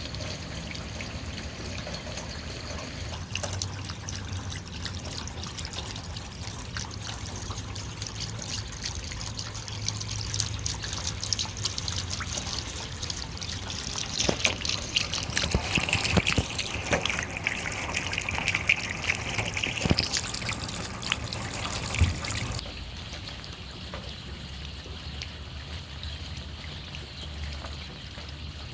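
Water trickling and dripping, with a busy patch of sharp drips through the middle before settling to a quieter, duller trickle near the end.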